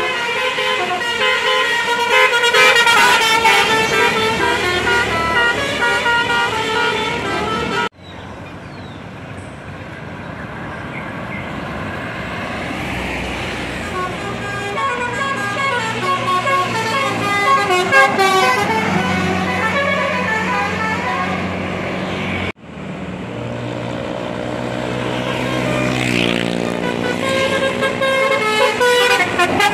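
Tour buses sounding Basuri 'telolet' multi-tone air horns, playing melodies of stepping pitched notes. The sound breaks off suddenly twice where one horn tune gives way to another.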